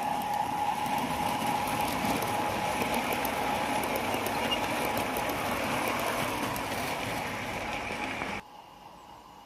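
Garden-scale model train rolling past on its track: the wheels of a long string of flat wagons give a steady rumble with fine rapid clicking. The sound cuts off suddenly near the end.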